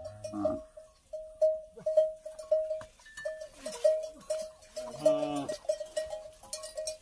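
Metal neck bells on water buffaloes clanking irregularly, about two or three strikes a second, with a short low animal call about five seconds in.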